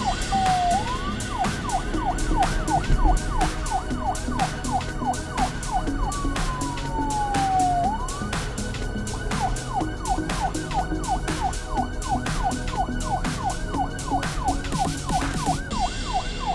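Police siren sound effect in a fast yelp, its pitch sweeping rapidly up and down about three times a second, with one long falling wail in the middle before the yelp resumes. It plays over background music with a steady beat.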